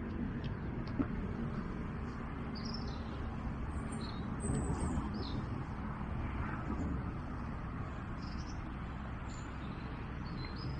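Small birds chirping now and then over a steady low outdoor rumble, with a single faint click about a second in.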